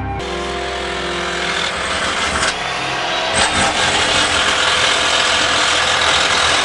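Soft background music cuts off abruptly, giving way to a motor-driven machine running with a constant hissing noise and a faint steady hum, growing slightly louder, with a couple of brief clicks.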